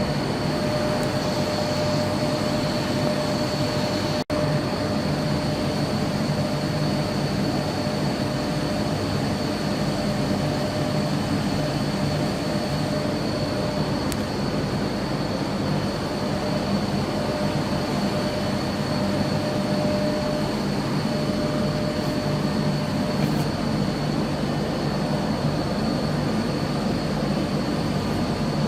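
A machine running steadily: a continuous loud hum and rumble with a steady high whine over it, broken by a split-second dropout about four seconds in.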